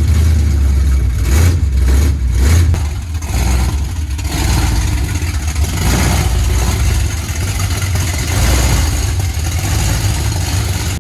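Chevrolet 454 big-block V8 running just after starting, with uneven throttle blips over the first few seconds before settling to a steadier, lower idle.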